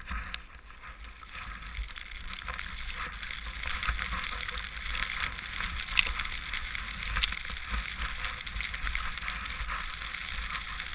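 Skis hissing through deep powder snow, heard from a helmet-mounted camera, building over the first couple of seconds as the skier gets moving. A low wind rumble on the microphone and a few sharp ticks run under it.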